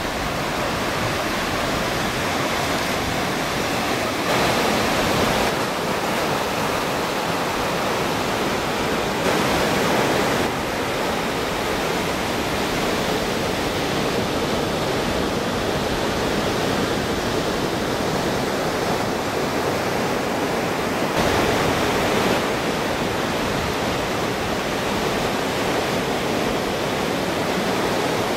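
Ocean surf breaking and washing onto the beach, a steady rushing hiss with three brief louder surges.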